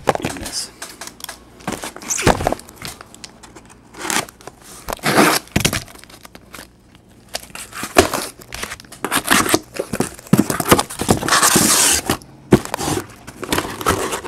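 A taped cardboard shipping case being opened by hand: packing tape and cardboard tearing, with flaps rustling and scraping in irregular bursts, and one longer tear about three-quarters of the way through.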